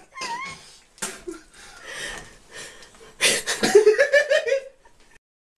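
A person laughing in a run of bursts about three seconds in, with knocks and rustling before it and a brief high wavering squeak near the start.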